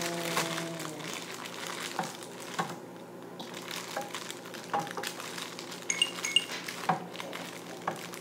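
Scattered light clicks and knocks of kitchen utensils handled at a counter, with two brief metallic clinks about six seconds in.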